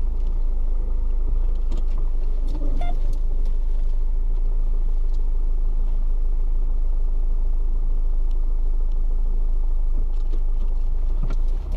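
Rover 75 CDT's four-cylinder turbodiesel running as the car is driven slowly, with a steady low rumble. The engine sits on a newly replaced lower engine mount, and the drive is free of shake and rattle.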